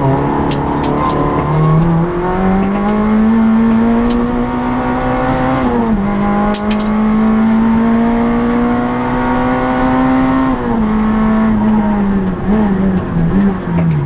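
In-car sound of a Citroën Saxo Group N rally car's four-cylinder engine pulling hard at high revs, the pitch climbing steadily, with upshifts about six and eleven seconds in. Near the end the revs waver as the driver lifts and blips, then fall as the car slows.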